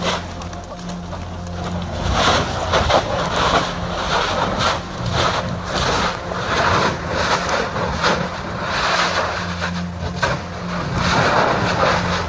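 Erupting lava fissure: a continuous rumbling roar that swells and eases every second or so, with crackling spatter bursts over a steady low hum.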